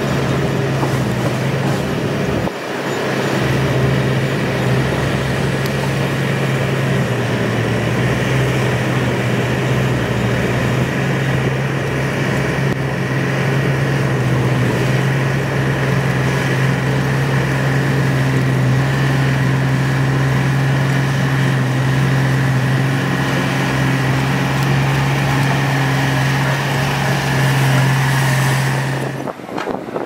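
Komatsu crawler bulldozer's diesel engine running steadily at constant speed while it pushes a pile of soil, with a thin high whine over the engine note. The sound drops out briefly about two and a half seconds in and changes abruptly just before the end.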